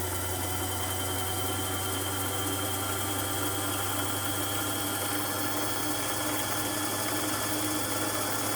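Singer 327K sewing machine's motor running at a steady speed to wind a bobbin, with the clutch disengaged so the needle does not move. It makes a steady, even hum with a whine.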